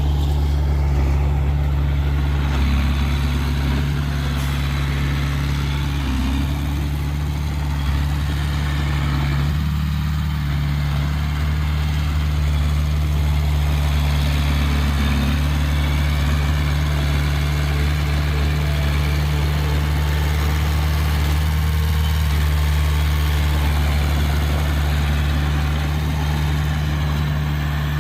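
A steady low mechanical drone at one even pitch.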